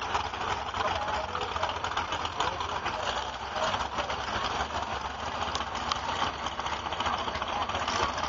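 Pulling truck's engine idling, with crowd chatter over it.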